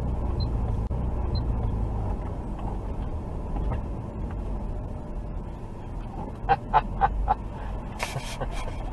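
Steady low rumble of engine and road noise inside a car as it slows, then four quick honks of a car horn a little past the middle.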